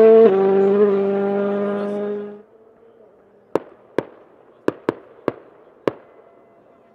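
A rally car's engine runs hard at high revs, its pitch dropping a little shortly after the start, until it cuts off about two and a half seconds in. Then six sharp firework bangs go off in an irregular string, aerial crackers bursting overhead.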